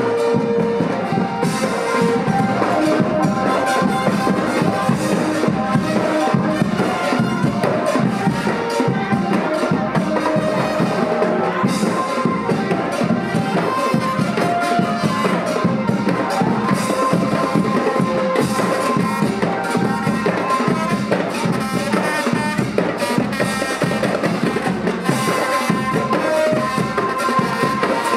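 Traditional Thai procession music for a dancing crowd: drums and percussion keep a steady beat under a held melody line.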